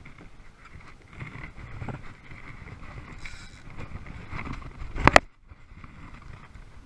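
Steady wind and water noise around a kayak on choppy open water, with a loud sharp knock, two or three quick clicks together, about five seconds in.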